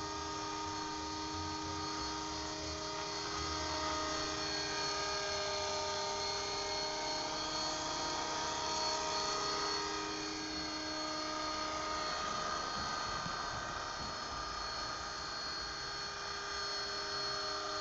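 Electric RC model helicopter (Mini Titan with an Agusta 109 scale body) in flight: a steady high whine from the motor and gears over the hum of the rotor blades. Its pitch shifts a little about two-thirds of the way through as it manoeuvres.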